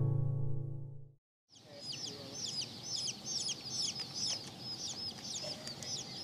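A strummed guitar chord rings out and stops about a second in. After a short silence, a group of German Spitzhauben baby chicks peep continuously, a dense run of high, quick chirps.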